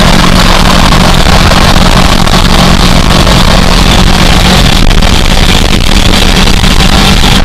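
Race car engine heard from inside the stripped, caged cabin, running loud and steady at a constant high pitch under racing load, with a dense rush of wind and road noise over it.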